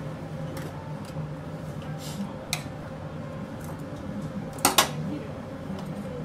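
Sharp clinks of metal tongs against a plate and bowl as ramen toppings are placed, the loudest a quick double clink near the end, over a steady kitchen hum.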